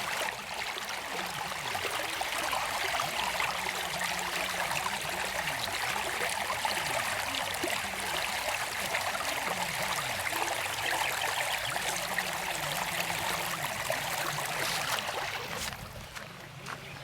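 Water running steadily, like a stream or flowing water, dropping off sharply near the end. A faint low wavering hum lies underneath.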